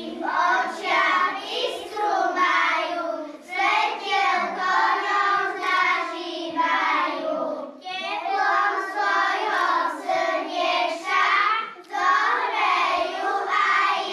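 A group of young children singing a song together, in phrases that break every second or two.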